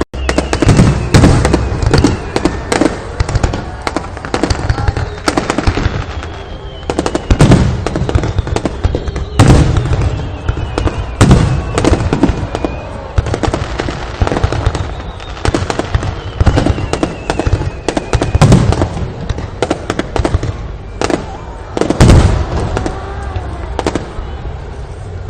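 Aerial fireworks display: a rapid, continuous barrage of loud bangs and crackling bursts, with several high whistles gliding downward in pitch now and then.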